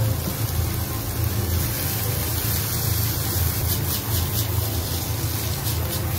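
Carrot and pepper strips stir-frying in butter in a frying pan over a gas burner, a steady sizzling hiss, with a few short scrapes as the pan is tossed about two thirds in.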